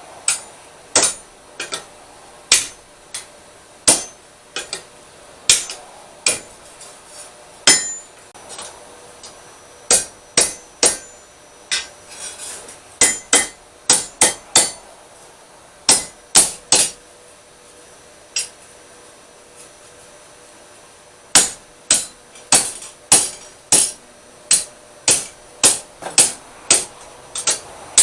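Blacksmith's hammer striking steel on an anvil, with sharp ringing blows in irregular runs. After a pause of a few seconds about two-thirds of the way through, the blows come faster, about two a second.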